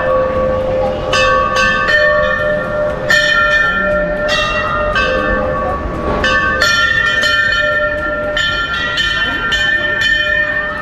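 Hanging Hindu temple bells struck again and again, about once a second, several bells of different pitch ringing on and overlapping.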